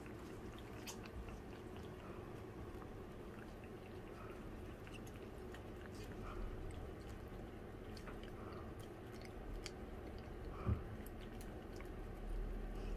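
Several cats licking paste from a squeeze-tube cat treat held out by hand: faint, scattered wet licking and smacking clicks over a low steady hum.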